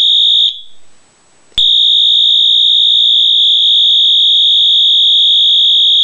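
Wheelock MT24-LSM fire alarm horn sounding its continuous horn tone, one loud, steady, high-pitched electronic tone. It cuts out about half a second in and comes back about a second later, then holds steady.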